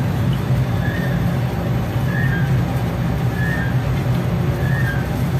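Steady low mechanical hum of an indoor shooting range's machinery, with a faint high squeak repeating about every second and a quarter; no gunshots.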